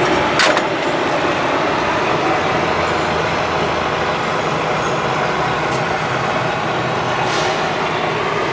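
City street traffic: a heavy vehicle's engine running low under steady road noise, with a short sharp click about half a second in.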